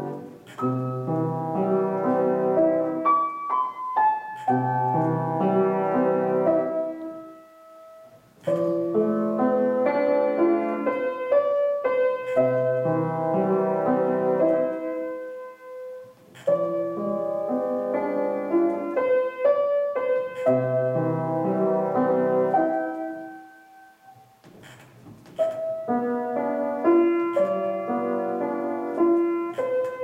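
Grand piano played solo: a piece in phrases of several notes, with the playing dropping away briefly three times between phrases.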